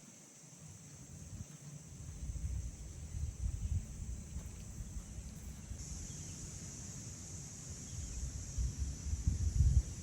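Outdoor ambience: a steady high-pitched insect chorus that gets louder about six seconds in, over gusty low rumble of wind on the microphone.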